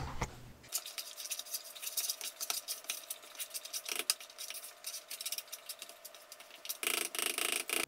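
A metal spoon stirring and scraping through a thick, sticky mix of diced pumpkin, peanut butter, spices and honey in a bowl. It makes a run of quick irregular clicks and scrapes, louder in the last second.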